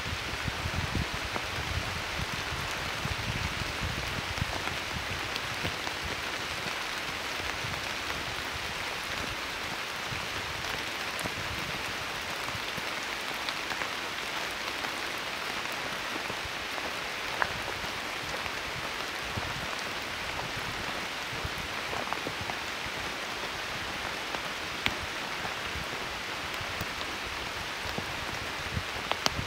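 Steady rain falling on the leaves and undergrowth of a cedar forest, an even patter with now and then a single louder drop striking close by.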